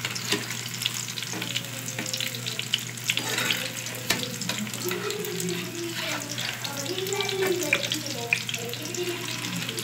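Eggplant omelette patties frying in hot oil in a pan: a steady sizzle full of sharp crackles and pops from the spattering oil.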